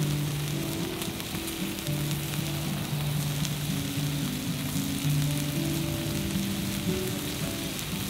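A thick steak sizzling on an iron griddle plate over a campfire, with a steady hiss and scattered pops of spitting fat. Soft background music of slow held low notes plays underneath.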